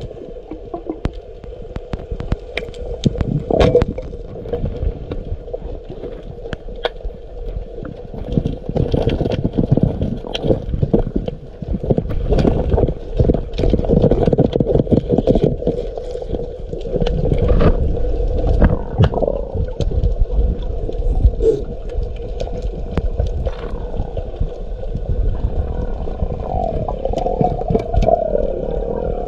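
Muffled underwater sound: water rushing and gurgling around the microphone, with a steady hum, scattered sharp clicks and knocks, and a few short wavering tones near the end.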